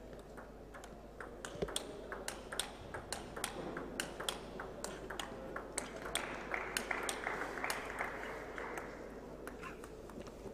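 Table tennis ball clicking back and forth off the bats and the table in a steady rally, about three hits a second, stopping about nine seconds in.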